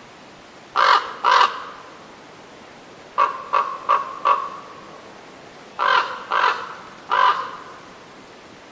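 Crows cawing: two harsh caws, then a quicker run of four shorter ones, then three more.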